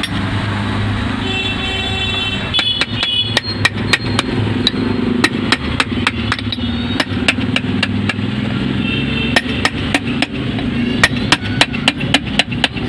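Small hammer tapping around the rim of a Minda trumpet horn's metal housing on a steel block, seating the cover back on the housing: a long run of sharp metal taps, about three a second at an uneven pace, starting about two and a half seconds in.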